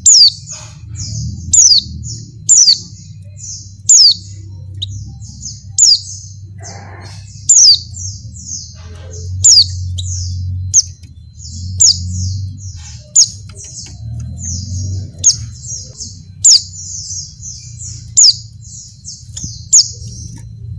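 Female white-eye (pleci) calling: rapid high, thin chirps with a loud, sharp downward-sliding call about every second or two, a female in breeding condition calling to males. A low rumble runs underneath.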